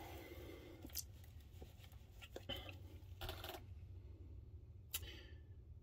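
Faint rustling and a few light clicks from over-ear headphones being handled and put on, over a low steady hum.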